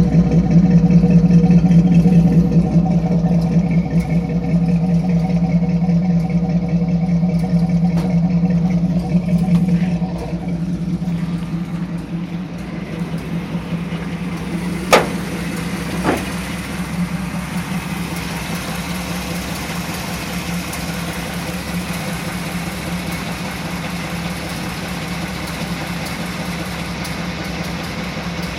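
1986 Chevy C10's 350 small-block V8 running at idle, an uneven running that the owner suspects is a misfire. It runs louder for the first ten seconds, then settles quieter, with two sharp clicks about fifteen seconds in.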